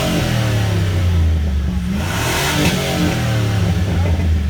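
Car engine revved hard on demand while parked, climbing in pitch and dropping back twice, with a burst of exhaust noise at each peak.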